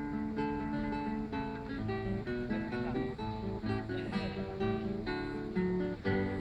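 Solo acoustic guitar playing a fingerstyle arrangement of a children's song, plucked melody notes over a moving bass line that enters about two seconds in.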